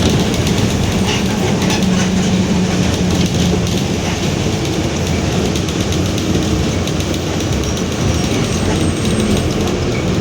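Inside a Mercedes-Benz OF-1721 city bus under way: the front-mounted four-cylinder diesel running, with body and panel rattles throughout. A steady droning hum from the bus's growling differential fades about three seconds in and returns faintly near the end.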